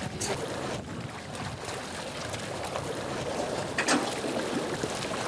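Floodwater sloshing and splashing around a man wading beside a submerged car, over a steady low rumble, with one sharp, sudden sound about four seconds in.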